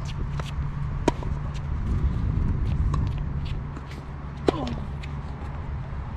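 Tennis rally: racket strings striking the ball, with sharp pops about a second in and again about four and a half seconds in from the near player's shots and fainter hits from the far end between them, over a steady low rumble.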